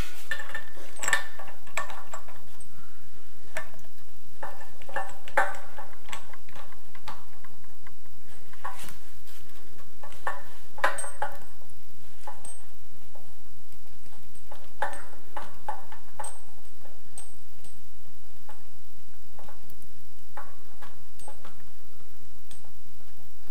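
Irregular clinks and knocks as a chrome cross-handle mixer tap and its fittings are handled and fitted against a sink, metal tapping on metal and on the sink body.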